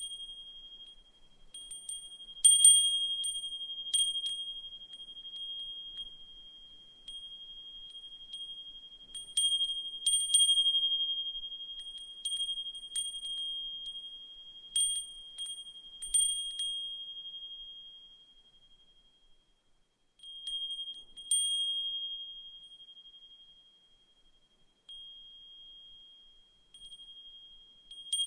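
Brass suzumushi furin (Japanese wind chime) ringing, its clapper striking at irregular moments so that one clear high tone with a fainter higher overtone rings out and decays after each strike. It falls quiet for a moment about two-thirds of the way through before ringing again. The bright, delicate tone is meant to recall a singing bell cricket.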